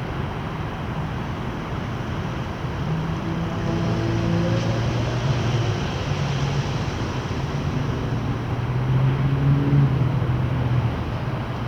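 Boeing 737-800 airliner's CFM56-7B turbofan engines heard flying past: a steady rushing drone with low humming tones. It grows louder from about four seconds in and eases off near the end.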